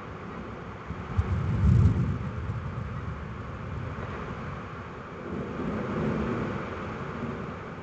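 A thunderclap: a sharp crack about a second in, then low rumbling that fades over a couple of seconds. A second, weaker roll of thunder swells and fades near the end, over a steady hiss.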